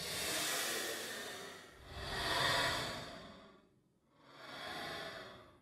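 Ghostly breathy sighs from a horror sound effect: three long, airy exhalations that swell and fade, each about two seconds long, the middle one loudest.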